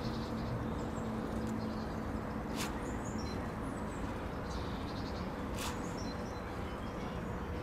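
Outdoor background with small birds chirping faintly and a steady low hum that fades out about halfway. Two brief sharp noises come about three seconds apart.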